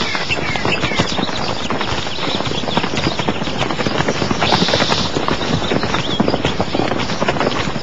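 Footsteps of several people walking, a quick, even clip-clop of hard steps, with birds chirping near the start.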